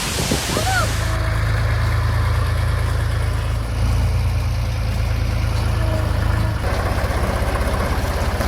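An engine idling steadily, changing about two-thirds of the way through to a rougher, evenly pulsing engine note.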